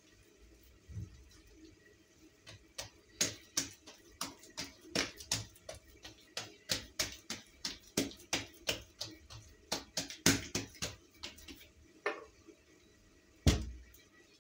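Hands patting and pressing a sheet of yeast dough down onto a layer of poppy-seed paste: a quick run of soft, wet slaps, about three a second, ending with one louder thump near the end.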